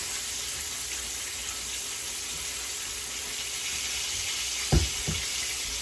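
Chicken legs frying in hot oil with a steady sizzling hiss. Two dull knocks come close together near the end.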